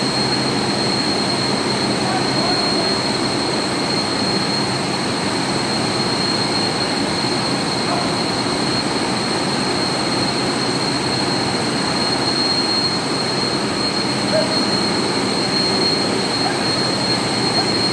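Screw compressors of water-cooled chillers running: a steady, loud machine noise with a constant high-pitched whine over a low hum.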